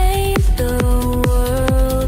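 Electronic trance music without vocals: a steady four-on-the-floor kick drum under sustained synth chords.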